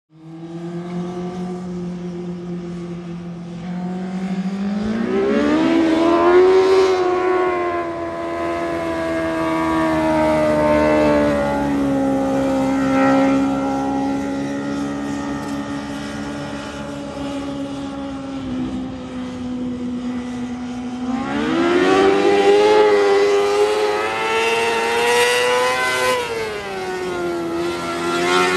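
Car engine running hard, its pitch climbing as it revs up and then holding steady. This happens twice, once about a fifth of the way in and again about three quarters of the way through, and the pitch drops back near the end.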